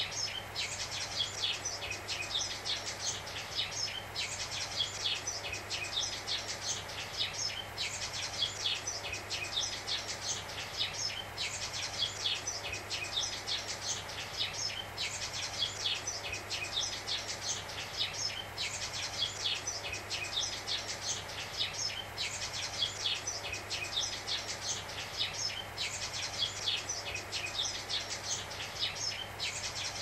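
Sparrows (Eurasian tree sparrows) chirping busily over a steady hiss of analog-TV static. The chirping swells in a repeating loop about every four seconds.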